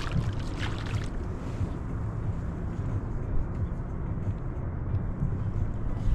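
Steady low rumble of wind buffeting the microphone on a kayak at sea, with a few short clicks and rustles in the first second.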